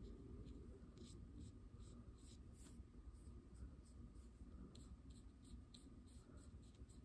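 Faint, short scratchy strokes of a fine paintbrush flicking acrylic paint onto paper, about three a second, over a low steady room hum.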